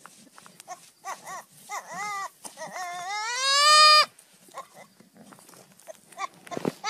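Young goat bleating: a quick run of short bleats, then one longer, louder bleat that rises in pitch and stops abruptly about four seconds in.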